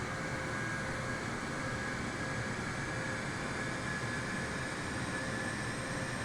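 Jet airliner engines running steadily under a constant rush, with a high turbine whine that rises slowly in pitch.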